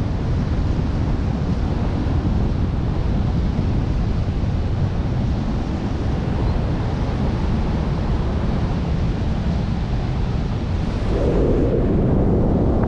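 Wind rushing over an action camera's microphone from the airspeed of a tandem paraglider in flight: a steady, low, rumbling buffet that grows a little louder about eleven seconds in.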